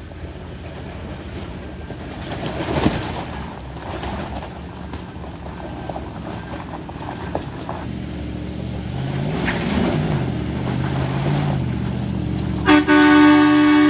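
An off-road vehicle's engine running, its revs rising and falling. Near the end a vehicle horn sounds one long blast, louder than everything else.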